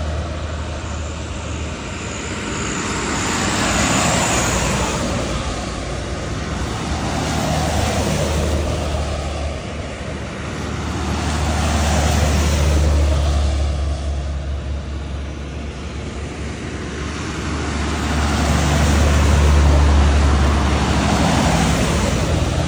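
A line of buses driving past one after another, engine hum and tyre noise swelling and fading as each one goes by.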